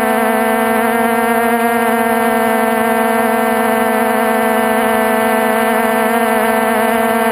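Multirotor drone's electric motors and propellers running with a steady, even drone that wavers slightly in pitch, picked up by the camera mounted on the craft in flight.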